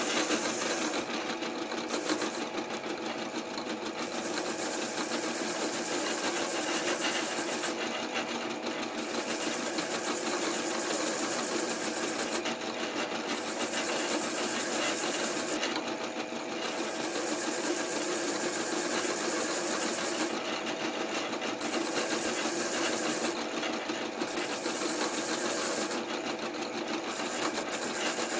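Wire brush wheel on a bench grinder running steadily while a zinc-plated bolt is held against it, the bristles scrubbing surface rust off the bolt and its threads with a hissing scrape. The scrape breaks off for about a second several times as the bolt is lifted away and turned, leaving the motor's steady hum.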